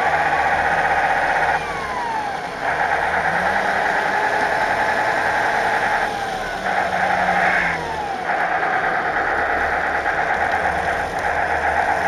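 Sound unit in an RC Tatra 130 model truck playing a simulated air-cooled diesel V8 with howling cooling fans. The engine note steps up and down several times as the truck is driven, with a couple of sliding whines about a second and a half in and again around six to eight seconds in.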